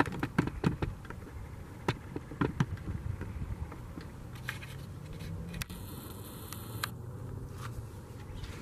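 Scattered metallic clicks and light scraping from handling a chainsaw's bar and chain and the sharpening tools, with no engine running. The clicks come thickest in the first few seconds.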